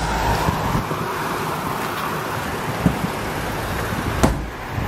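Steady rumbling vehicle noise, with a short knock about three seconds in and a sharper, louder knock about a second later.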